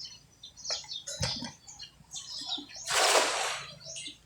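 Small birds chirping in short high notes throughout, with a brief rush of noise, the loudest sound, about three seconds in.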